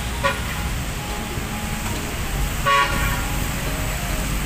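City street traffic with buses and cars passing, a steady low rumble, and a vehicle horn tooting: briefly just after the start, then louder for under half a second about three seconds in.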